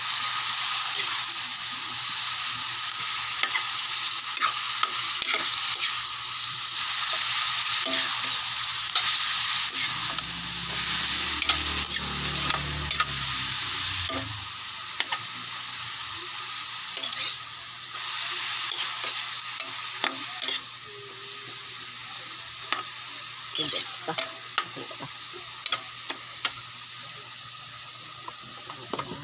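Ground pork and onion sizzling in oil in a wok while a metal ladle stirs it, scraping and clicking against the pan. The sizzle grows quieter over the second half.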